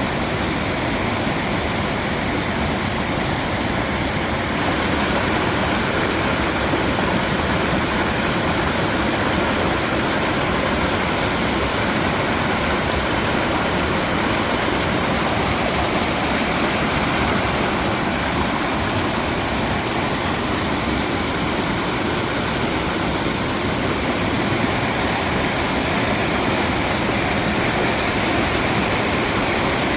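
Mountain valley stream flowing in a steady, full hiss of running water, turning a little louder and brighter about four seconds in.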